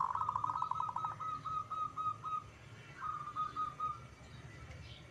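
Zebra dove (perkutut) cooing: a fast string of short, clear coos that slows over about two seconds, then a second, shorter run about three seconds in.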